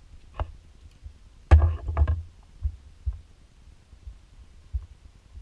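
Knocks and clatter as a digital caliper is put down and a small aluminium part is handled, the loudest cluster about a second and a half in, followed by a few lighter clicks.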